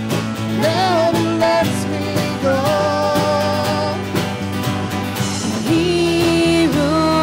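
Live band playing a country-style song: women singing long held notes over drums, bass, and electric and acoustic guitars.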